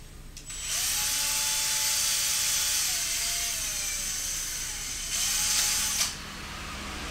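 Small electric drill running for about four seconds, its pitch dipping partway through as it bites, then a second short burst: drilling holes in a plastic part.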